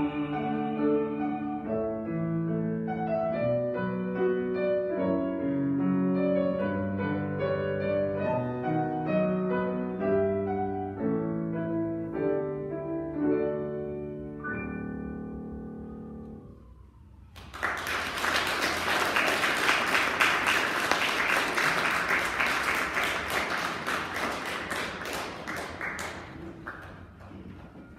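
Grand piano playing the closing bars of an art song after the singer's last held note dies away, ending on a sustained chord that fades out. About a second later the audience applauds for about eight seconds, the loudest part, fading away near the end.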